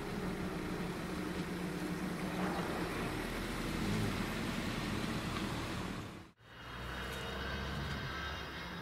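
Steady motor-vehicle running noise, an engine hum with road rumble. It cuts out abruptly about six seconds in, then a similar steady rumble resumes.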